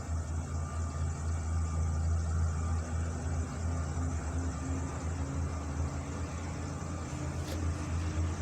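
Truck engine running steadily with a low drone, and a faint tap near the end.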